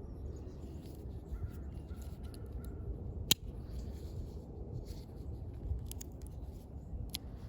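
A crow cawing several times in a short even series, with one sharp click about three seconds in and a few lighter clicks near the end.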